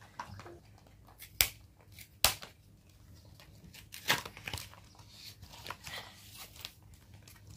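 Plastic packaging on tubs of toy modelling clay being torn and crinkled open by hand, with a few sharp clicks and snaps scattered through.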